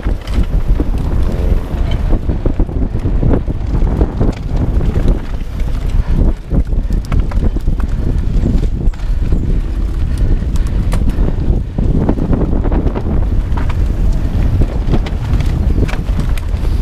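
Wind buffeting the microphone of a mountain bike ridden fast over bumpy dirt singletrack, with the bike rattling and knocking over the bumps.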